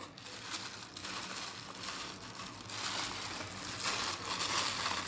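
Plastic bag packaging crinkling and rustling as it is handled and lifted out of a cardboard box, getting louder about halfway through.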